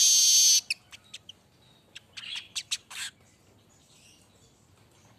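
Manyar (weaver bird) singing: a loud, harsh buzzing wheeze that cuts off about half a second in, then a quick series of short sharp chirps and ticks that stops about three seconds in.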